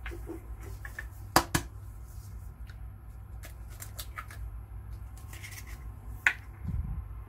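Raw eggs cracked over a glass mixing bowl: two sharp taps of shell about a second and a half in, another single crack a little past six seconds with a soft thud after it, and faint handling noises between.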